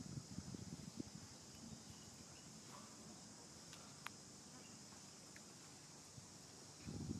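Steady, high-pitched insect chorus, crickets or similar, with soft low rustling in the first second and again near the end, and one short click about four seconds in.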